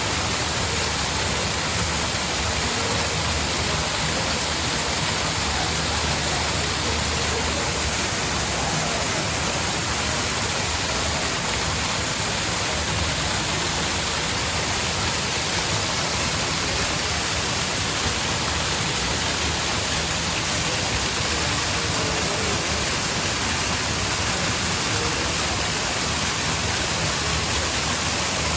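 Cascading water: a steady, unbroken rush of falling water.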